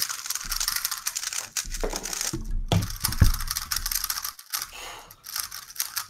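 Rapid clicking of a plastic speed cube's layers being turned quickly by hand, with two dull thumps about three seconds in.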